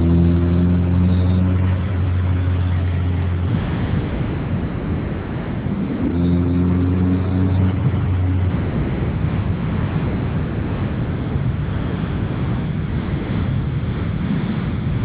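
Mk2 Volkswagen with a swapped-in G60 engine running with a steady rushing noise. Twice, a steady low-pitched hum with overtones sounds over it for a few seconds and then stops; this is the weird noise under investigation.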